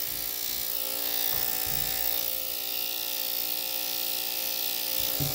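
Electric dog-grooming clippers running with a steady buzz as they are worked over a puppy's coat.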